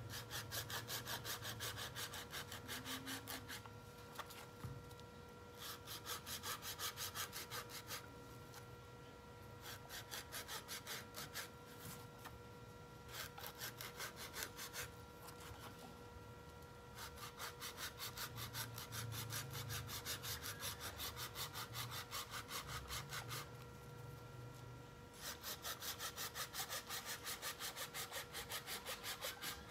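A hand-held saw blade sawing through a coconut's husk and hard shell to cut off a lid. The rapid back-and-forth scraping strokes come in runs of a few seconds, with short pauses between them.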